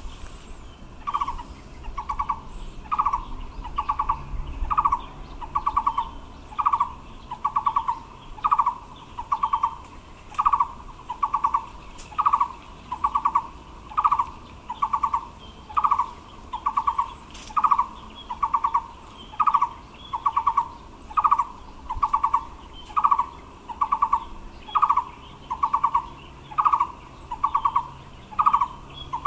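Taiwan barbet singing: a short, rapidly pulsed note repeated steadily about once a second.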